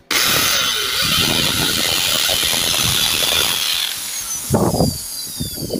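Corded hammer drill in hammer mode boring into a concrete floor with a masonry bit: a loud, rapid hammering rattle over the motor. It starts suddenly, eases off about four seconds in with one more short burst, and the motor winds down with a falling whine near the end.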